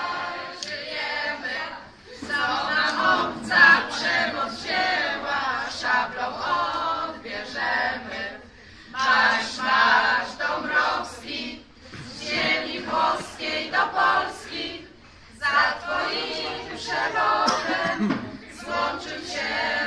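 A small group of voices singing together a cappella, in phrases with short breaks between them.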